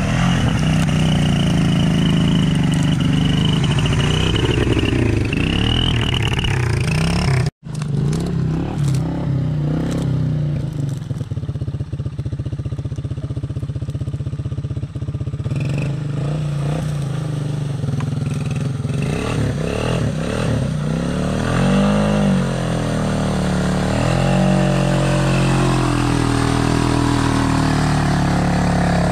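Honda 300 ATV's single-cylinder four-stroke engine running under load as the quad is driven through swamp water and mud. Its revs rise and fall repeatedly in the second half. The sound drops out for an instant about a quarter of the way in.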